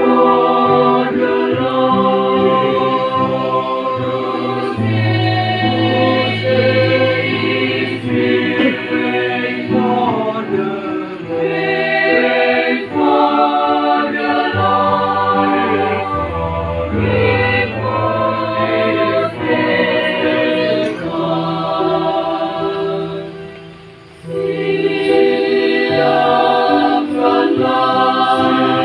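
Mixed choir of young men's and women's voices singing a Christian song in parts, with sustained chords over a low bass line. There is a brief break about three-quarters through before the singing resumes.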